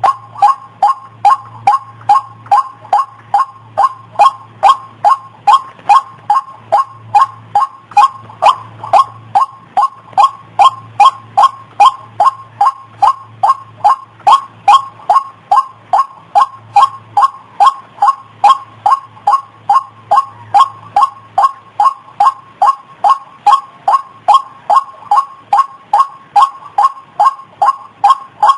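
White-breasted waterhen (ruak-ruak) calling: a long, even series of short, loud notes, about two a second, in a steady rhythm, as used to lure the birds.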